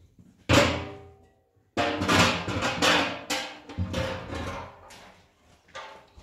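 A metal pot and a large round perforated metal tray knocking together as they are handled: one loud ringing clang about half a second in, then about three seconds of rattling, clanging clatter, and a last small knock near the end.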